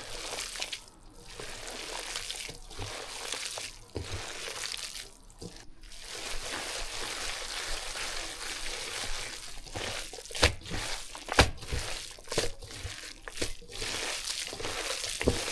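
Minced-meat dumpling filling being stirred in a bowl, a wet mixing sound. Several sharp clicks come in the second half, likely the utensil knocking the bowl.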